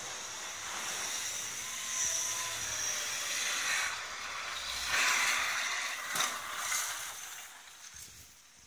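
Volvo S40 sedan driving through a muddy dirt track, its engine and tyres in the mud heard as a rushing hiss that swells about five seconds in and fades near the end.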